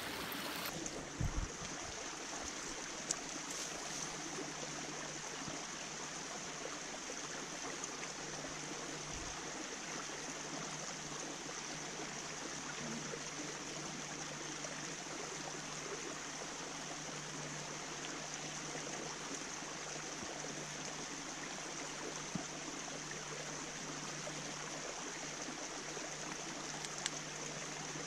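Steady rush of a small mountain stream flowing over rock, with a few brief knocks in the first few seconds.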